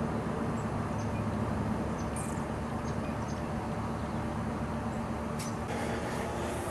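Outdoor background noise: a steady low rumble like distant traffic, with a few faint high chirps scattered through and a single click about five and a half seconds in.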